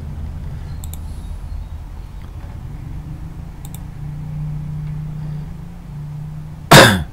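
Low steady background rumble with two faint computer-mouse clicks, a low steady hum in the second half, and one short loud burst of noise near the end.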